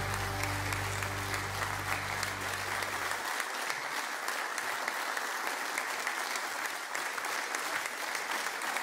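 Studio audience clapping steadily. Soft music underneath fades out about three seconds in.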